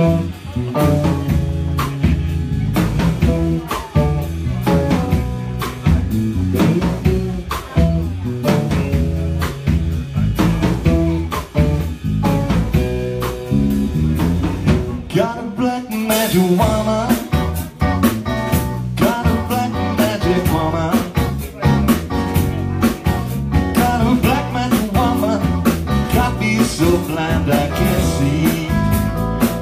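Small live rock band playing a song with electric guitars and a drum kit, with a man singing through the PA.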